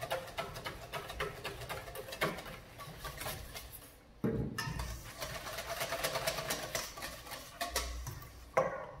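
Wire balloon whisk beating rapidly against a stainless steel mixing bowl, a fast run of scraping clicks as an egg-yolk aioli is whisked to emulsify and thicken. The whisking stops briefly about four seconds in with a low knock, then carries on.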